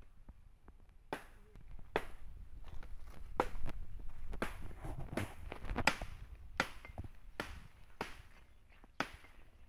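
About a dozen sharp knocks at irregular intervals, roughly one a second, closer together in the middle, over a low background rumble.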